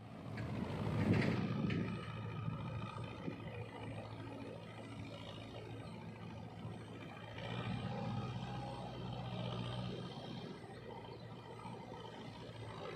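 Farm tractor engine running steadily, swelling louder about a second in and again around eight seconds.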